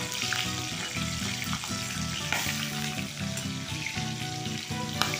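Whole green chillies sizzling as they fry in hot mustard oil in a kadai, turned with a perforated slotted spoon that clicks against the pan a few times. One louder sharp pop near the end, an unslit chilli bursting in the oil.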